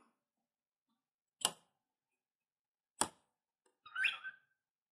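Steel ruler knocking on a Garolite build sheet as it is set down and positioned: two sharp clicks about a second and a half apart, then a short scraping knock near the end.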